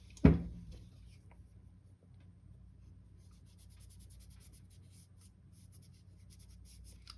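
A single sharp knock just after the start, then faint, quick scratchy rubbing strokes: the friction points of a Springfield 1911-A1 pistol slide being scrubbed clean.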